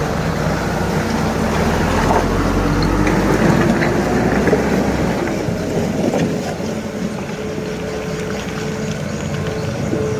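Heavy diesel engine running steadily, with a deep rumble that eases about halfway through.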